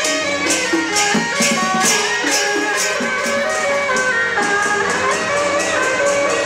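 Taiwanese procession music: a suona (Chinese shawm) playing a wavering melody over cymbal clashes about twice a second.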